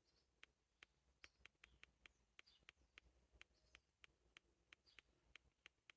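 Faint, irregular clicks, about two or three a second, from the buttons of an HMD Barbie flip phone's keypad being pressed.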